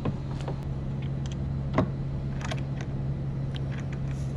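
A steady low hum under scattered light clicks and taps of bolts being threaded by hand into a plastic Scotty mount deck on a kayak.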